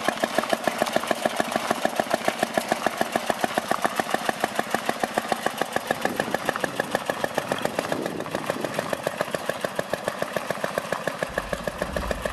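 Small 1.5 hp engine of a miniature John Deere tractor running steadily with an even, rapid beat as the tractor drives along.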